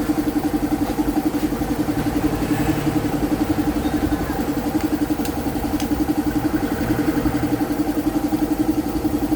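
Fury 125 motorcycle's single-cylinder engine idling steadily with an even pulse, its freshly cleaned carburetor now running it smoothly.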